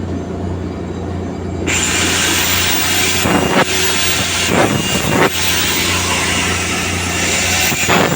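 A welding machine's steady electrical hum, then a welding arc striking about two seconds in and running on as a loud, steady hiss with occasional sharp pops.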